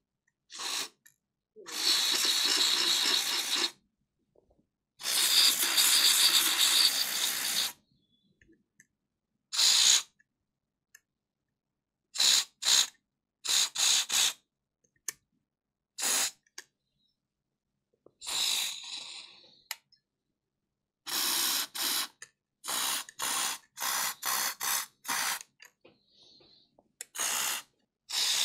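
WD-40 aerosol sprayed through its straw into the reciprocating saw's quick-release blade clamp: two long hissing sprays, then a string of short squirts. The penetrating oil is being worked into a clamp that will not lock the blade in.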